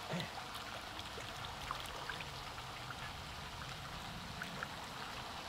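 Faint water trickling and lapping with small drips, as a hand moving at the surface of a pond stirs the water.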